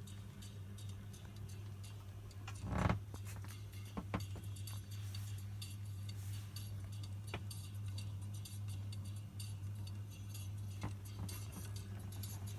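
Steady low hum from a record-cutting lathe, with scattered sharp clicks and a louder knock about three seconds in.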